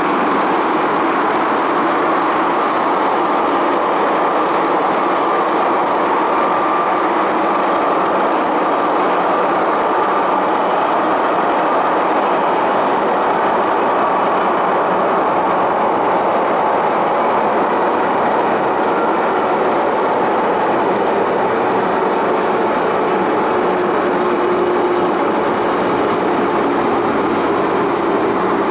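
MTR M-Train electric metro train running at speed through a tunnel, heard from inside the carriage: a loud, steady rumble of wheels on rail and running gear that holds constant throughout.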